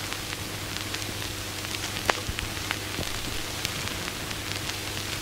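Vintage surface-noise effect: steady crackle and hiss with scattered sharp pops over a low, steady hum.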